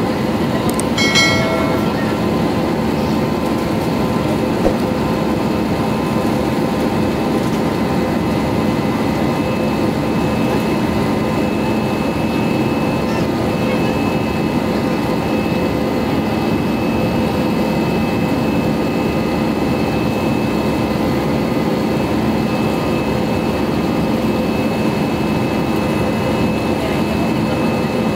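Steady cabin drone of an Airbus A320-214 in flight: its CFM56 turbofans and the rushing airflow, heard from a window seat over the wing, with a few faint steady whining tones. About a second in there is a brief ringing tone.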